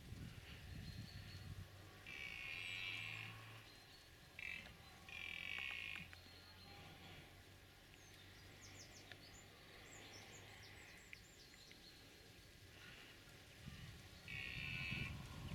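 Red deer stag belling in the rut: a few short calls about two seconds in, again around five seconds, and near the end. Small bird chirps can be heard between them.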